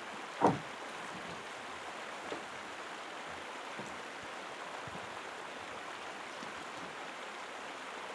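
Steady rush of river water flowing, with one short, louder sound about half a second in.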